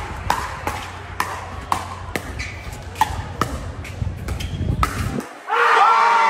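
Pickleball paddles striking the plastic ball in a fast rally at the net: sharp pops about two a second. About five seconds in, spectators break into cheers and shouts.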